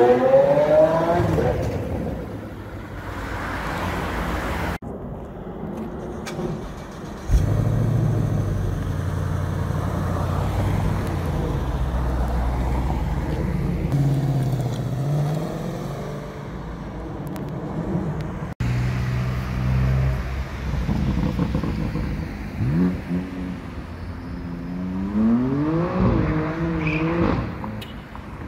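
A sequence of car engine sounds. In the first second, an engine accelerates with its revs climbing. Through the middle stretch, a Ford Mustang GT's V8 idles with a steady low burble and a short rise in revs. From about 22 s, another engine revs up again in rising sweeps before the sound drops away near the end.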